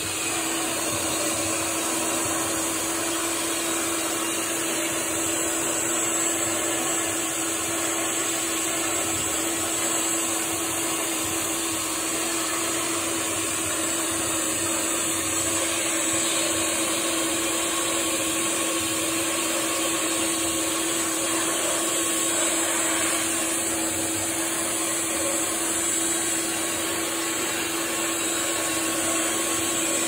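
Vacuum motor running steadily with a constant hum, with no change in pitch or level.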